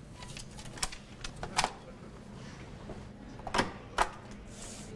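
About five scattered sharp clicks and knocks from paper and objects being handled on a cashier's counter, the loudest about a second and a half and about four seconds in, over a low steady room hum.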